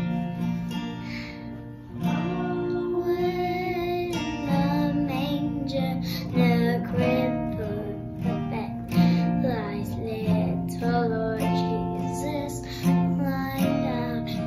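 A young girl sings a song to strummed acoustic guitar accompaniment.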